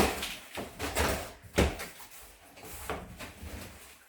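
Several knocks and thuds of something being handled: one at the start, one about a second in, and the loudest about a second and a half in, with quieter rustling and bumping between them.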